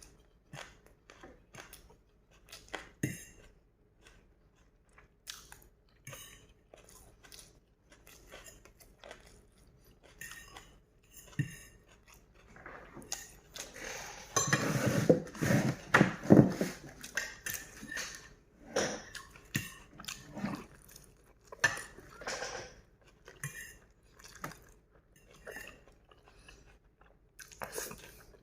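Close-up eating sounds: chewing and biting of noodles, with cutlery clicking and clinking against a bowl or plate. About halfway through there is a louder, denser run of eating sounds lasting a few seconds.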